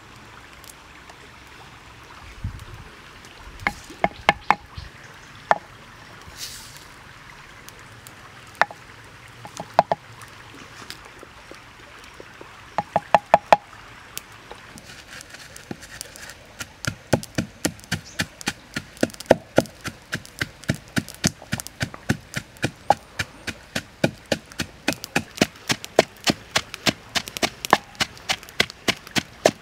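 Wooden pestle pounding garlic, red chili and salt in a wooden mortar: quick, regular knocks about three a second, starting a little past halfway. Before that come a few scattered knocks and taps as ingredients go into the mortar.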